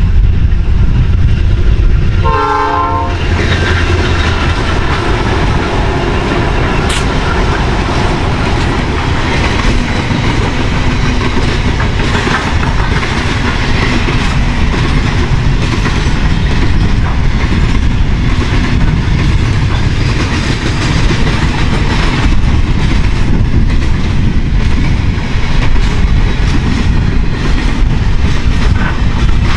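Pacific National grain train passing: the four diesel locomotives rumble by, with a short horn blast about two seconds in. A long line of grain hopper wagons then rolls past with a steady rolling noise.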